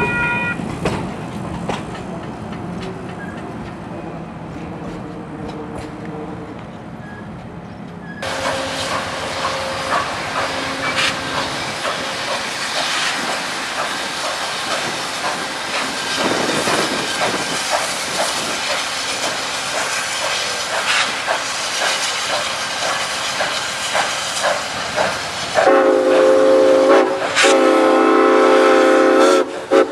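Passenger cars rolling past on the rails with wheel clatter. After a sudden change, the Santa Fe 4-8-4 steam locomotive No. 3751 works past with steam hissing and a steady clanking. Near the end its steam whistle sounds two long blasts.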